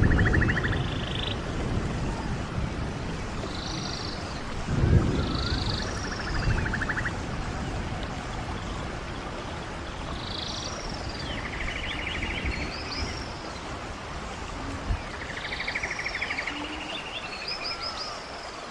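Running stream water with birds calling over it again and again: short buzzy trills and higher arching whistled notes, several times. Low rumbles swell at the start and again about five seconds in.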